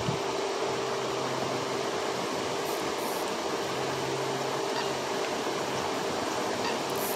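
Steady hum and hiss from a lake aeration fountain's pump and spray, with a constant mid-pitched tone under an even rush of noise.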